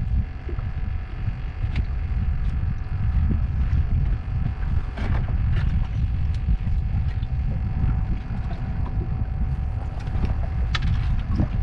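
Wind buffeting the microphone as a steady low rumble, with water lapping at the boat and a few faint clicks and taps from handling tackle.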